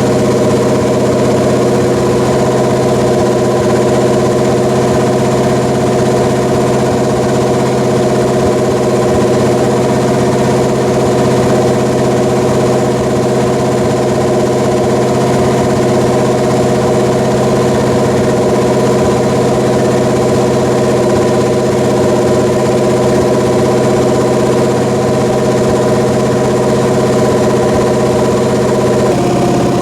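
Pontiac 400 V8 running steadily at a fast idle on an engine run stand during flat-tappet camshaft break-in, held at about 2,000 RPM. The note shifts slightly near the end.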